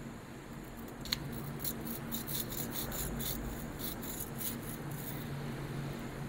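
Common rail injector shim, held in a hand grinding tool, rubbed back and forth on a grinding plate: a click about a second in, then quick rasping strokes, about four or five a second, that stop about five seconds in.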